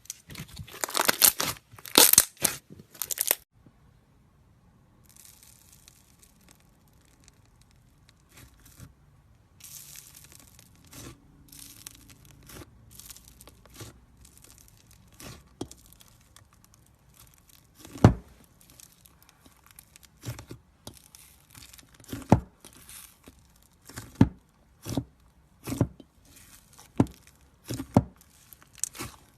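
Boba slime being squeezed and stretched by hand: dense sticky crackling for the first few seconds, then a quieter stretch broken by many sharp, irregular pops and clicks as air pockets burst.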